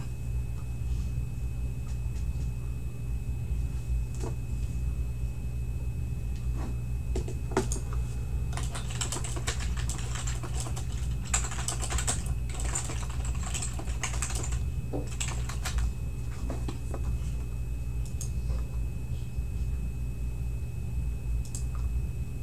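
Computer keyboard typing in scattered clicks, coming thick and fast in the middle, over a steady low hum with a faint high whine.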